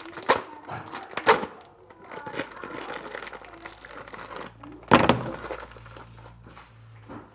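Plastic instant-noodle packet crinkling as it is cut and torn open with a knife, with sharp crackles near the start and about a second in and the loudest one about five seconds in.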